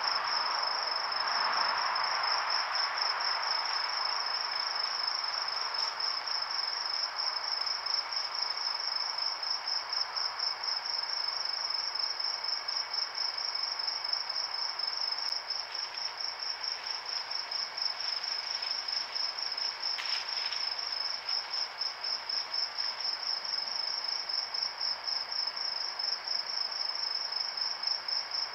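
A cricket chirping steadily in a rapid, even, high-pitched pulse, over a softer background hiss of night insects that is strongest in the first few seconds. A few faint clicks come about two-thirds of the way through.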